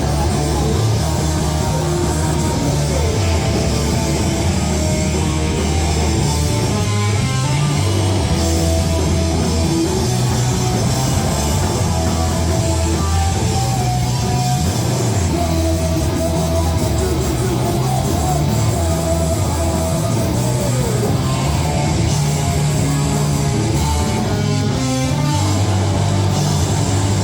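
A punk rock band playing live: distorted electric guitar, bass and drums, loud and continuous, in a rough recording with bad sound.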